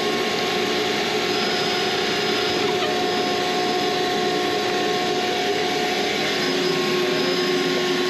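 A steady machine hiss with a few steady hum tones, holding the same level throughout.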